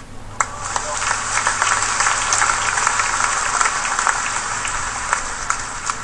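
Crowd noise: indistinct voices with many scattered claps or clicks.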